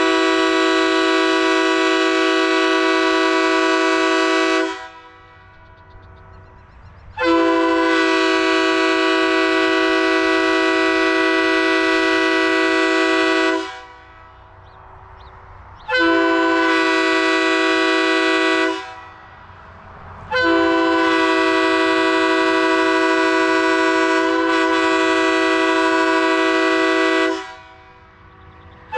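Tampa-built Leslie RS3K three-chime train air horn, with bells 31, 37 and 48, blowing a series of long blasts. It is a steady, higher-pitched chord. The first blast is already sounding and cuts off about five seconds in. After short pauses come blasts of about six, three and seven seconds, and another starts right at the end.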